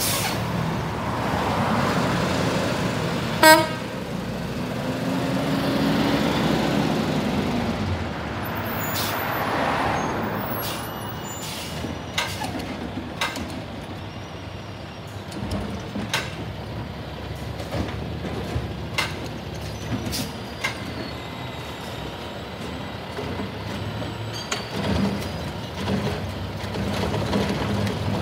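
Freightliner M2 106 garbage truck with a Heil Rapid Rail automated side-loader working a street: its diesel engine runs over swells of road noise, with a short pitched toot or squeal about three and a half seconds in. From about twelve seconds on come a series of sharp knocks and clanks from the automated arm handling a cart.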